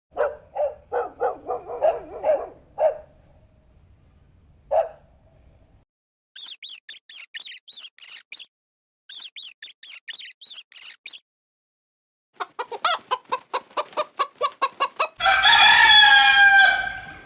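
Chickens: a hen clucking in short bursts, then two runs of very high, rapid chirping, then quick cackling clucks building into a rooster's crow, one long call that falls away near the end.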